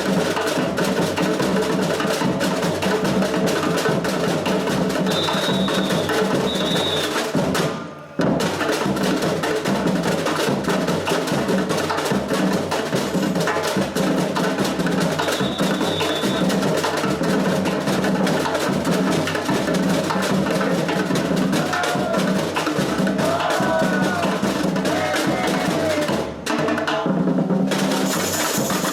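Samba percussion band playing a dense, driving samba rhythm on drums and hand percussion. The whole band stops for a moment about eight seconds in, then comes back in.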